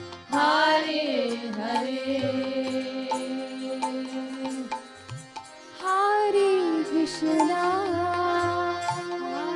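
Devotional kirtan music: a harmonium holds steady chords under a singing voice that slides through an ornamented melodic phrase, with drum strokes. The music drops back briefly about halfway through, then the voice comes in again.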